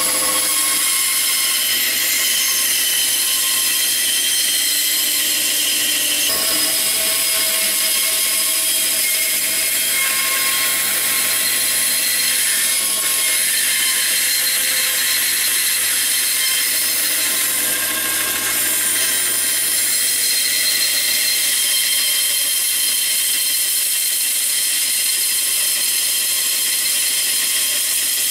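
Band saw running steadily while its blade cuts a curved outline through a thick block of wood.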